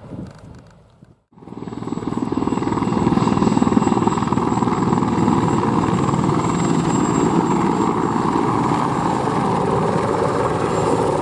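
Sikorsky CH-53G heavy transport helicopter flying low past: fast rotor beat under a steady high turbine whine. It is fainter for about the first second, then cuts in abruptly loud and holds steady.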